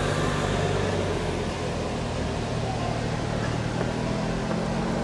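Steady low hum of an idling engine under a constant hiss of background noise.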